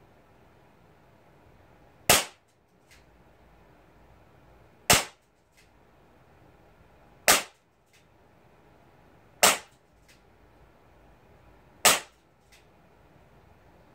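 Crosman SR357 CO2-powered BB revolver fired five times in single action, one shot every two to three seconds. Each short, sharp shot is followed a little later by a faint click.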